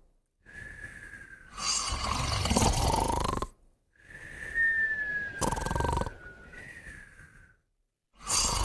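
Sleeping pets, one of them a puppy, snoring together: a thin whistle that slides slightly down in pitch, then a loud snore, repeating in slow breaths about every four seconds with brief silent gaps between them.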